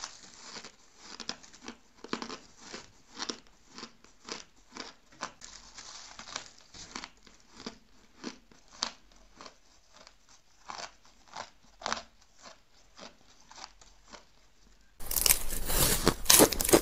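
Ice being chewed in the mouth, a regular crispy crunch about twice a second. About fifteen seconds in it turns suddenly much louder and denser: crunching bites into a frosty block of ice.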